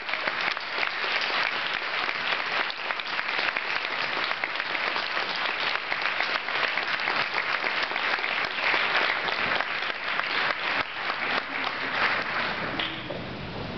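Audience applauding steadily, with the clapping thinning out near the end.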